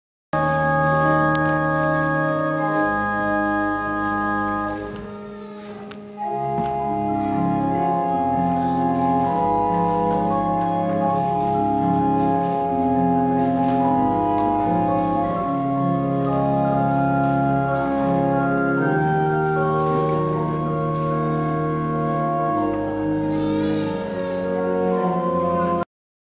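Church organ playing slow, sustained chords. It drops away about five seconds in, comes back abruptly at full level, and cuts off suddenly near the end.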